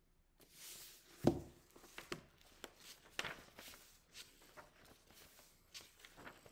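A hardcover book and paper being handled close to the microphone: short rustles and a string of light knocks and clicks, with one heavier thump about a second in.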